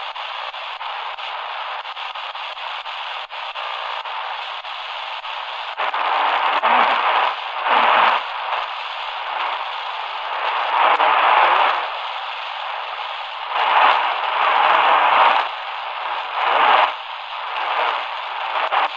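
Shortwave static and hiss from an XHDATA D-328 portable radio's speaker while it is tuned between stations. From about six seconds in, the noise swells louder several times as the dial passes signals.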